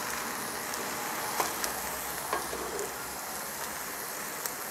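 Minced pork and vegetables sizzling in a cast-iron Dutch oven as a wooden spoon stirs them, with a few short knocks of the spoon against the pot.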